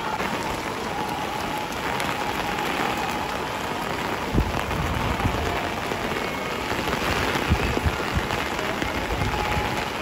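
Heavy rain falling steadily on wet paving, a constant hiss, with a few short low thumps about halfway through and again later.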